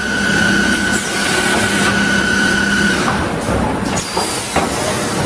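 Automatic stator coil winding and inserting machine running: a steady motor whine over a rushing noise that stops about three seconds in, followed by a few sharp clicks and knocks of the machine's actuators.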